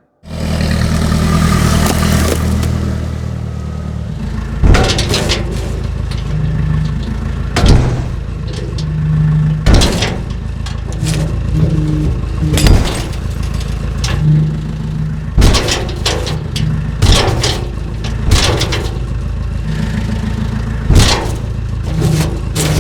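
An engine running steadily, with loud sharp crashes and clatter about every two to three seconds.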